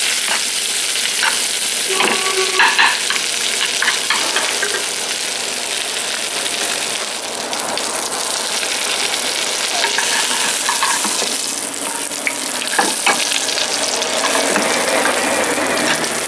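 Salmon fillet frying in foaming butter in a pan, a steady sizzle, while the butter is spooned over the fish. Occasional sharp clicks come from the metal basting spoon against the pan.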